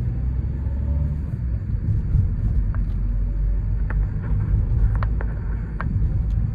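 Ford Courier's 1.5-litre, 100 hp engine and its tyres on the road, a steady low rumble heard from inside the cabin while driving, with a few faint clicks or knocks.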